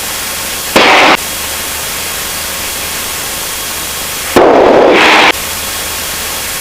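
Aircraft radio static: a steady hiss, with two louder bursts of noise, a short one about a second in and a longer one around four and a half seconds, as the frequency is keyed without speech.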